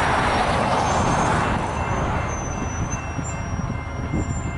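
Low rumble of a distant approaching BNSF freight train, mixed with wind on the microphone. A rushing swell builds over the first second or two, then eases off.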